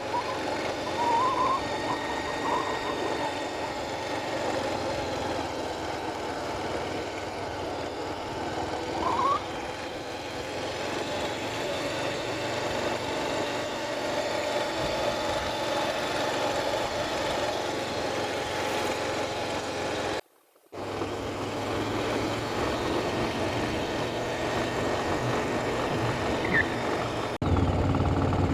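A vehicle running steadily, its engine and road noise continuous, with a few faint short rising chirps. The sound drops out for a moment about two-thirds of the way through.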